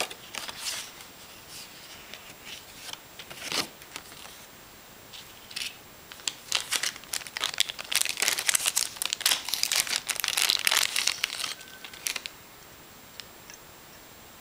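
Thin clear low-density polyethylene (PE-LD) bag crinkling in the hands as it is opened and the clear canopy parts are taken out. A few scattered crackles come first, then several seconds of dense crinkling that stops shortly before the end.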